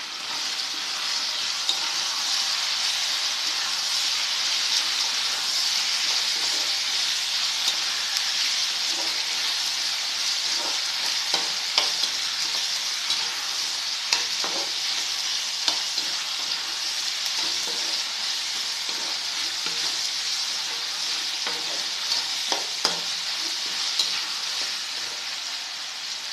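Prawns sautéing in hot oil with onion, tomato and potato in a pan: a steady sizzle, with a utensil stirring and scattered clicks and scrapes against the pan.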